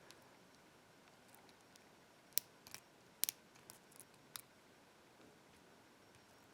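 Faint, sharp metallic clicks of a lock pick working the pin stack of an ISEO cylinder lock. There are about half a dozen ticks, bunched between two and four and a half seconds in, as the pick probes the last pin.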